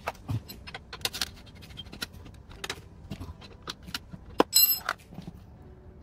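Irregular metal clicks and clinks of hand tools and a nut being handled at an electric scooter's rear axle, with one louder, briefly ringing metallic clink about four and a half seconds in.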